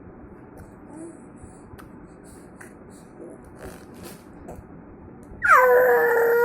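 A few seconds of quiet with faint small clicks, then near the end a baby lets out a loud, long wailing cry that drops sharply in pitch at its start and holds, wavering.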